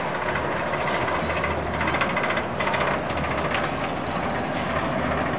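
Steel inverted roller coaster (Cedar Point's Raptor) train running along its track, a steady rumble with a low hum and some clatter.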